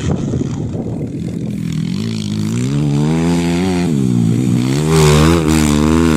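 Wind rushing on the microphone, then a motocross dirt bike's engine comes in about two seconds in, its pitch rising, dropping and rising again as the rider works the throttle through the corner.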